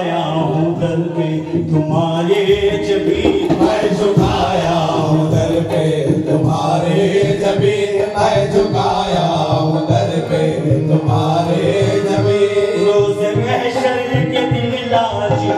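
Qawwali: a lead singer's amplified voice chanting over harmonium accompaniment, with hand drums coming in about two and a half seconds in.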